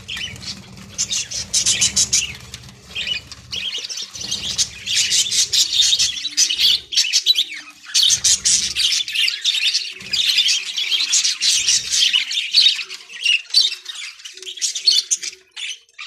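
A flock of budgerigars chattering and squawking continuously, many birds at once in a dense, fast twittering. A low rumble comes and goes in the first half.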